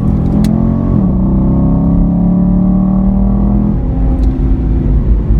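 Chevy SS's 6.2-litre LS3 V8 engine running at track speed, its pitch dropping about a second in and then holding steady at a lower note before easing down a little further near the end.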